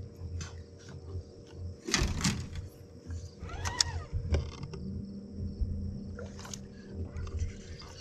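Steady electric whine and hum of a bass boat's trolling motor, with scattered clicks and knocks of rod and tackle being handled on the deck. A louder short noise comes about two seconds in and a brief pitched sound about four seconds in.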